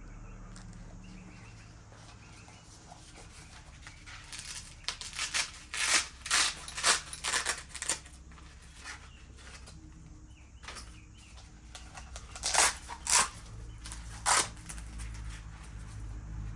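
BMX pads' hook-and-loop straps being ripped open and pressed shut: a run of short rasping rips, then a second, shorter cluster a few seconds later.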